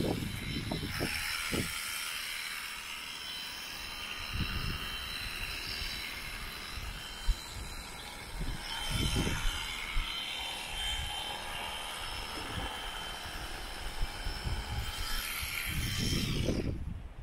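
Electric shearing handpiece running steadily with a high buzz as it cuts through alpaca fleece, with occasional low thumps from handling the animal. The buzz cuts off near the end.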